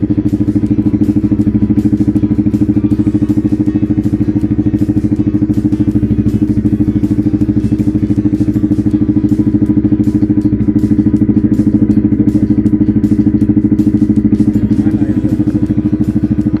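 Fishing motorboat's engine running steadily under way, a loud even chugging pulse with no change in speed.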